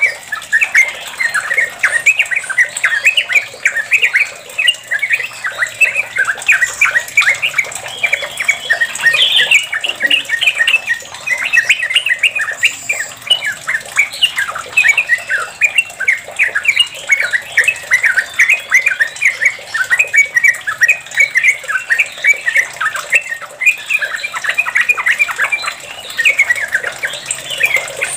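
Yellow-vented bulbul singing a long, unbroken run of quick chattering notes without pause: the rapid continuous 'ropel' song.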